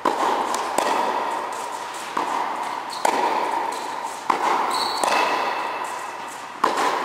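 Tennis ball being struck by rackets in a volley drill on an indoor court: seven sharp pops, mostly in pairs less than a second apart, each ringing out in the hall's echo.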